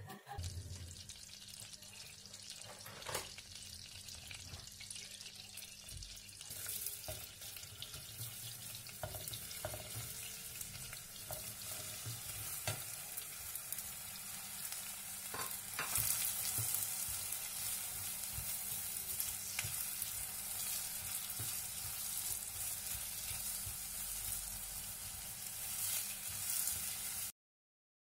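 Butter and oil sizzling in a stainless steel pot, with chopped carrot, onion and potato pushed in and stirred with a wooden spatula, with taps and scrapes of the spatula. The sizzle thickens about six seconds in and gets louder past the halfway mark once the vegetables are in, over a steady low hum, and cuts off abruptly just before the end.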